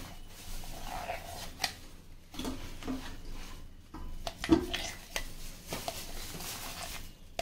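Metal spoon scraping and clinking against a steel jar and bowl while scooping out freshly ground wet rice paste, in a scatter of short scrapes and taps with one sharper knock about four and a half seconds in.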